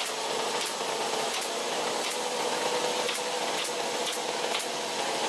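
Pneumatic staple gun firing staples through a vinyl seat cover into its base, about two sharp shots a second, over a steady mechanical drone.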